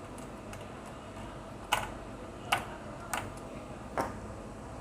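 Four sharp clicks of small metal parts knocking together, spread across a couple of seconds, as a hard drive is fitted and screwed into an NVR's metal case.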